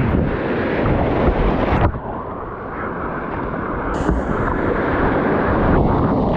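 Rushing whitewater on a pumped artificial whitewater course, loud and continuous, with splashing and buffeting on the microphone. The hiss drops off suddenly about two seconds in and cuts again right at the end.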